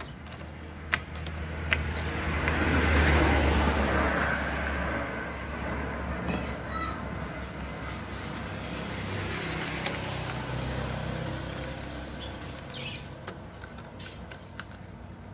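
A vehicle passing by, its noise and low rumble rising to a peak about three seconds in and fading, then a second, weaker pass later. Two sharp clicks sound in the first two seconds.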